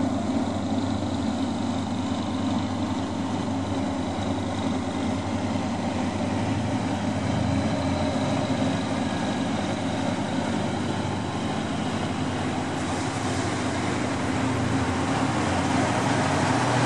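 Cummins KTA-50L diesel engine of a GE CM22-7i diesel-electric locomotive running steadily as the locomotive moves slowly past at close range, growing a little louder near the end.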